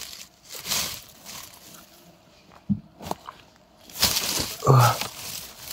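Rustling and crackling of dry leaves and low undergrowth on a forest floor as someone moves and handles plants, in two bursts about a second in and near the end, with a few small snaps between. A brief low grunt-like voice sound comes near the end.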